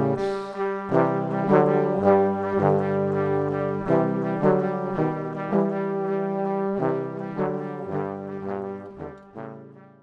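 Instrumental music: a melody of held notes changing about every half second over a lower line, fading out over the last few seconds.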